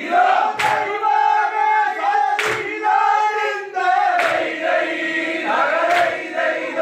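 A large group of men singing a boat song together in unison, with a sharp beat about every two seconds.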